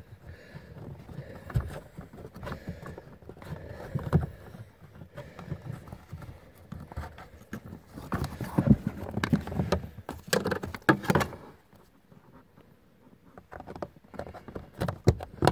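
Hands working plastic trim pieces and clips under a Volvo S60's dashboard: scattered clicks, knocks and rustling, busiest a little past the middle, then a short lull before a few more clicks near the end.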